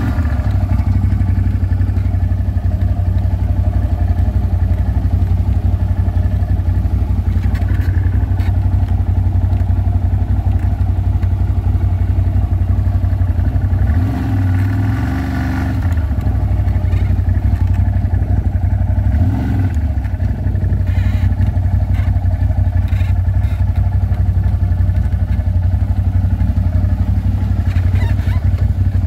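ATV engine running steadily under way. Its pitch and level dip briefly twice, about halfway through and again a few seconds later, as the throttle changes.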